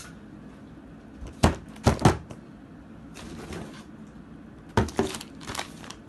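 Handling noises as parts and packaging are moved about: a few sharp knocks and clicks in two clusters, about a second and a half in and again about five seconds in, with a soft rustle between.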